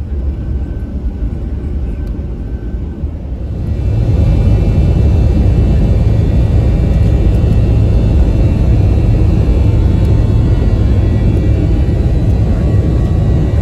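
Jet airliner engines heard from inside the cabin during takeoff. A lower rumble rises quickly about four seconds in to a loud, steady roar of takeoff thrust, with a faint whine over it.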